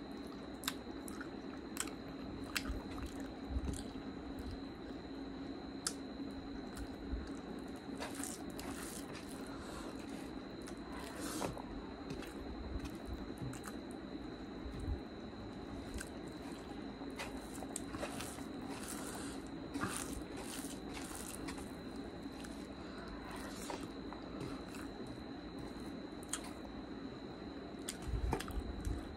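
Close-miked eating sounds: wet, squishy chewing and mouth clicks as rice is eaten by hand, with a steady faint hum underneath.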